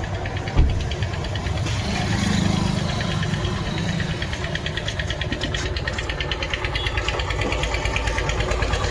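An engine idling with a steady rumble and a fast, even ticking, and one sharp thump about half a second in.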